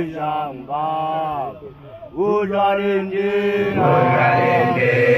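Young Basotho initiates (makoloane) chanting: a lone male voice leads with long, held notes that bend in pitch, then many voices join in about four seconds in.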